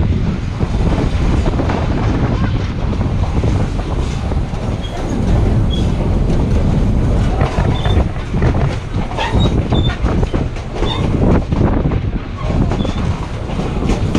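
Durango & Silverton narrow-gauge train running along the line: a steady rumble, with the wheels clicking and clattering irregularly over the track. A few short high squeaks come in the middle.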